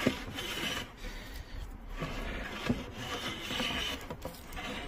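No. 4 metal bench plane with a freshly sharpened iron taking fine shavings off the edge of a wooden board, a hiss that comes and goes with each stroke. These are test cuts to check the blade's lateral setting.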